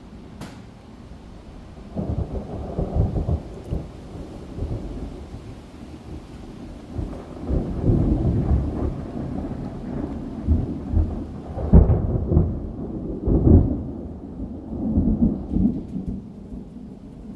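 Thunder rumbling and rolling for many seconds. It starts about two seconds in, swells, peaks in two strong surges about two-thirds of the way through, then dies away.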